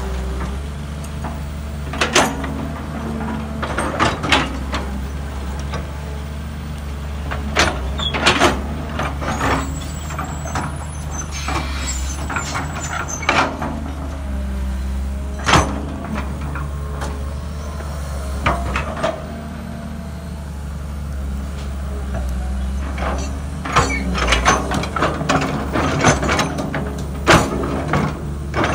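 Crawler excavator's diesel engine running steadily under load as the bucket digs and scrapes dry soil, with repeated sharp clanks and knocks from the bucket and arm, coming thick and fast near the end.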